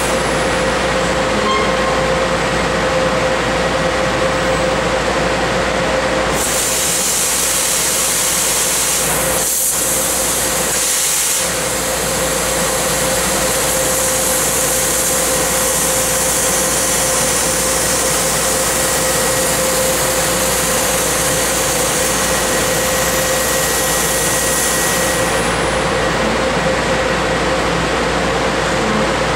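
Tanaka 6 kW laser cutting machine bevel-cutting half-inch mild steel: a steady loud hiss over a constant hum. A brighter, higher hiss comes in about six seconds in and drops away near the end, with two brief dips around ten seconds.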